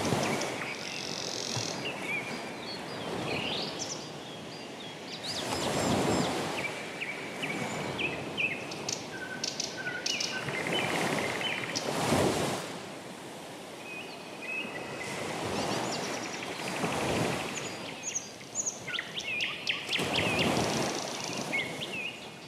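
Nature soundscape of birds chirping over a rushing noise that swells and fades every few seconds.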